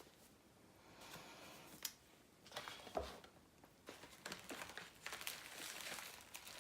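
Faint handling noise of craft supplies being moved about: soft rustling and crinkling with a few light knocks and clicks.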